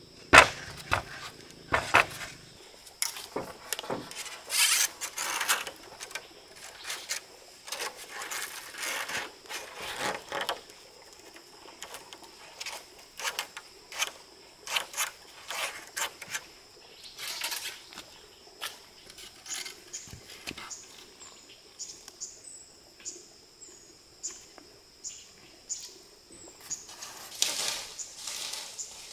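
Irregular knocks and rustling from handwork, over a steady high-pitched insect drone, with a few short bird chirps in the second half.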